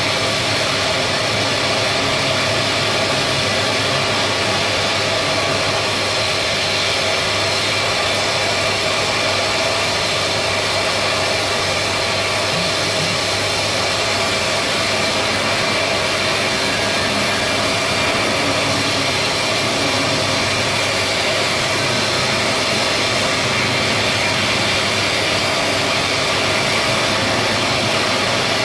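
Shipyard machinery running steadily and loudly: a constant hiss across the range over a faint low hum.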